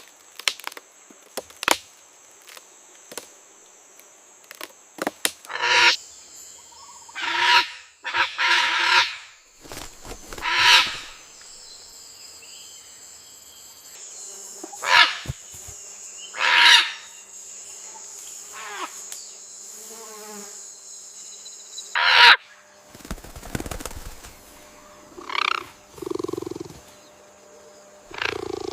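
Parrots squawking: a dozen or so short, harsh calls, spaced a second or two apart. A steady high buzz runs behind them and stops about three quarters of the way through.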